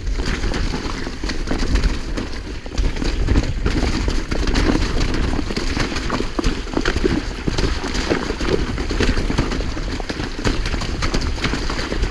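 Giant Trance full-suspension mountain bike descending a rough, rocky trail: a steady low rumble with dense, irregular knocks and rattles as the tyres and frame take the rocks and roots.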